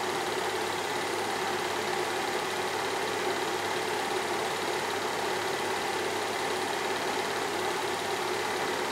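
Movie film projector running: a steady mechanical whir and fast clatter that does not change.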